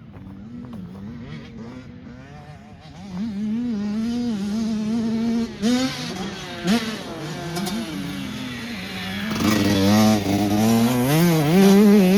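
Small off-road dirt bike engines racing, revving up and down through gear changes. They get louder about three seconds in, and near the end a second engine joins and the sound is at its loudest.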